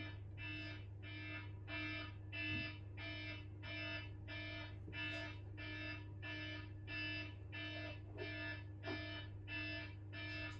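Wake-up alarm beeping: one repeating electronic beep, about two a second.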